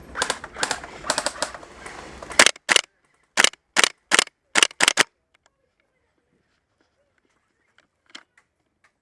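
Airsoft rifle firing a string of single shots: quicker, quieter clicks at first, then seven loud, sharp cracks about a third of a second apart that stop about five seconds in.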